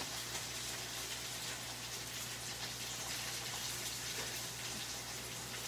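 Chef's knife rocking through fresh dill on a wooden cutting board, a quiet light tapping and pattering, over a steady hiss and a low mains hum.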